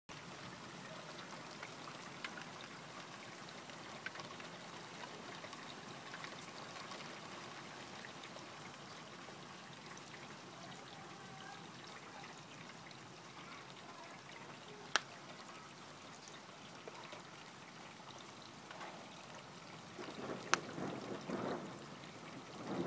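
Steady rain falling, with scattered drop ticks and two sharp clicks, one about fifteen seconds in and one about twenty seconds in. Near the end a louder, deeper rumble rises over the rain.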